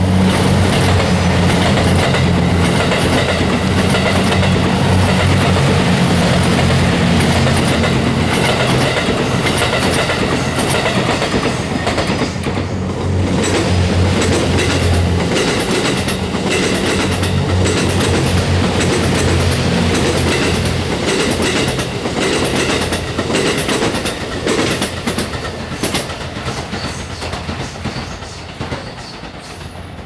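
Series 87 Twilight Express Mizukaze diesel-electric train passing close by: a steady low drone from its diesel engines, with wheels clicking over the rail joints. The sound dies away over the last few seconds as the train moves off.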